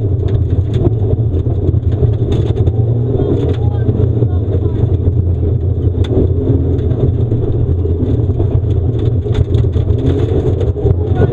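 Mitsubishi Lancer Evolution IV rally car's turbocharged four-cylinder engine running hard, heard from inside the cabin, with scattered sharp ticks of gravel striking the car.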